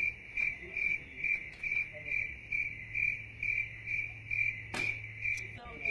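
A cricket chirping in an even rhythm, a little more than two chirps a second, over a low steady hum that stops near the end. Two sharp clicks come close together near the end.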